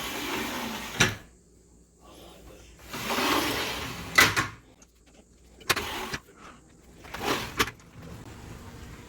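Retractable roll insect screen on an entrance door being slid along its track and latched: a sliding rush of about a second ending in a sharp click, twice, followed by more clicks and a shorter slide.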